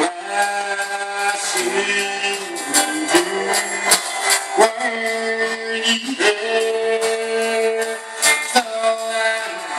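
Live gospel band playing: a man sings long held notes into a microphone over strummed acoustic guitar, electric bass and a drum kit keeping a steady beat.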